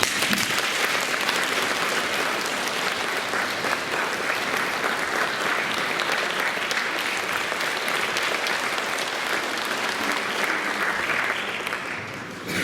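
Concert audience applauding, a dense patter of many hands clapping that fades out near the end.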